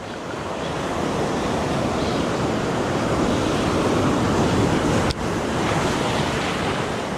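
Sea surf breaking and washing over shoreline rocks: a steady rushing that swells a little toward the middle, with wind on the microphone.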